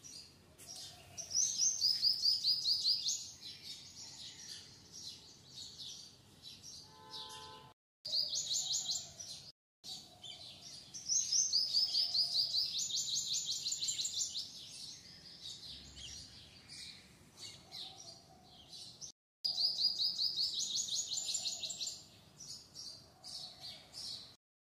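Small birds chirping, with several bursts of fast, trilled high notes lasting about two seconds each, some stepping down in pitch, over softer scattered chirps.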